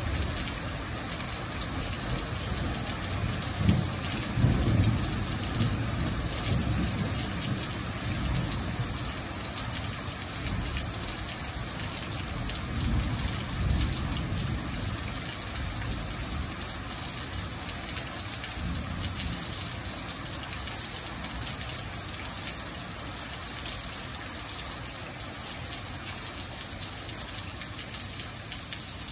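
Steady rain falling on a wet porch and pavement, with low rumbles of thunder swelling a few seconds in and again about halfway through, then fading.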